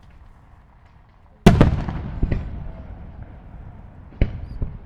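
Fireworks shells bursting overhead: a loud boom about a second and a half in rumbles and echoes away with crackling, followed by a few smaller pops and another sharp report near the end.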